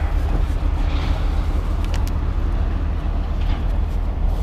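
Steady low outdoor rumble, with a couple of faint clicks about halfway through.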